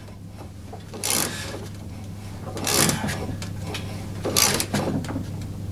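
Half-inch ratchet with a 16 mm socket tightening a lawn mower's blade bolt: three short bursts of ratchet clicking, about a second and a half apart, as the handle is swung back between pulls.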